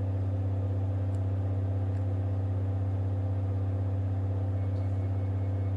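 Permanent magnet generator and its DC drive motor running at a steady speed of about 1,770 rpm, giving an even mechanical hum, with the generator loaded by an 8-ohm resistor through a coaxial-cable transformer.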